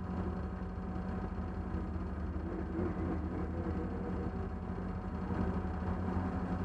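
Race car engine idling steadily, heard from inside the stripped cabin, with a constant low hum.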